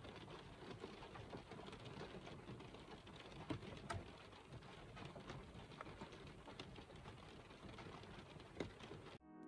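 Light rain on glass: a faint, even hiss with scattered small drop ticks.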